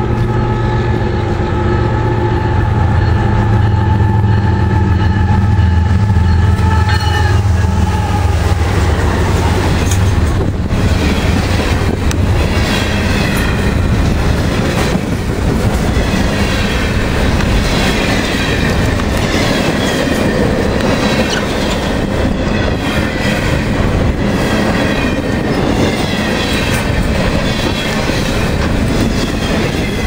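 CSX freight train passing close by. Its diesel locomotives drone loudly for the first several seconds, dropping slightly in pitch as they go past. The loaded trash-container cars then roll by with a steady rumble, rhythmic clickety-clack over the rail joints and a wavering wheel squeal.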